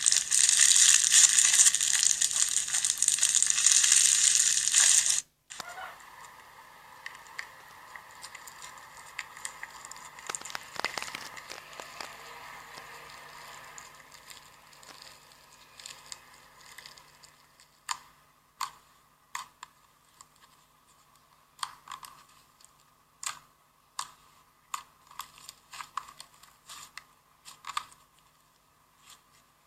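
Slime being squeezed and worked by hand: loud, dense crackling for the first five seconds, which cuts off abruptly. Quieter squishing follows, then from about the middle on, irregular sharp sticky pops and clicks.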